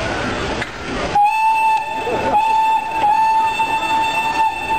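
Steam locomotive whistle blowing one long, steady note, starting about a second in and held with a couple of short breaks. Before it comes a noisy jumble of station and train sound.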